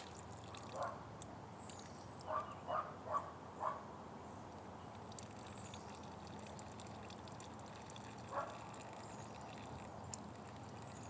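Old engine oil draining steadily from a Craftsman YT3000 lawn tractor's engine into a catch pan, a faint continuous trickle. A few short chirps sound over it: one about a second in, four quick ones just after two seconds, and one more past eight seconds.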